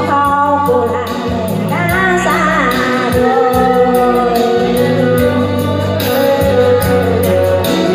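A woman singing into a microphone over amplified band accompaniment with a steady beat, holding long notes with vibrato.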